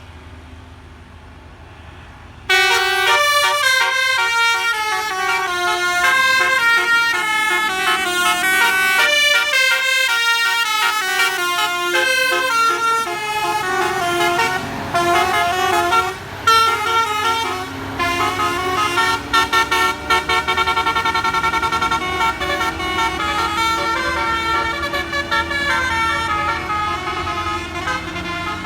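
Bus telolet 'basuri' musical air horn playing a fast melody of quickly changing notes. It starts suddenly about two and a half seconds in, after a low rumble, and keeps playing, with longer held notes in the second half.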